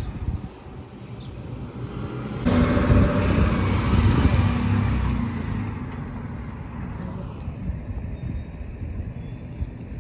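Motor vehicle driving past close by: its engine and tyres come in suddenly about two and a half seconds in, are loudest a second or two later, then fade away.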